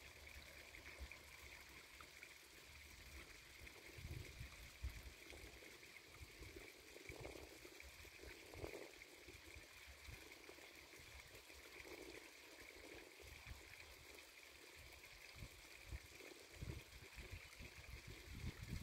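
Near silence: faint outdoor ambience, a steady soft hiss with occasional low rumbles.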